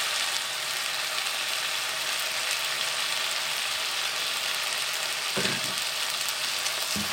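Raw mutton pieces, just added to ghee with onions and tomatoes in a kadai, sizzling with a steady hiss as they begin to sear. A couple of soft knocks come near the end.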